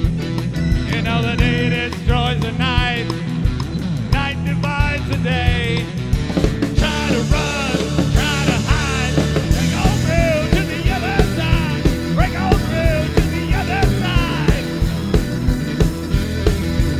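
Live rock band playing: a male singer's wavering sung lines over a steady drum beat, electric guitar and electric keyboard.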